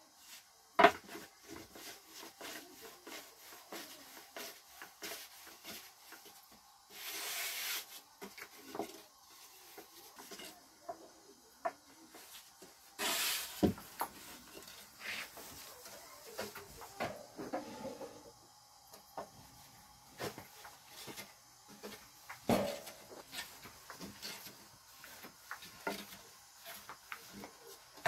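A long, thin wooden rolling pin rolling flatbread dough out thin on a round wooden board. It makes many small clicks and knocks against the board, one sharp knock about a second in, soft rubbing, and two brief swishes.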